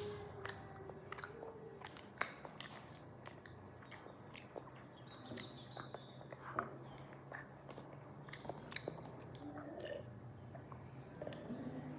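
A person biting and chewing spicy chicken, with many irregular sharp mouth clicks and crunches.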